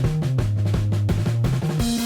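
Background music with a steady drum beat over a held bass line.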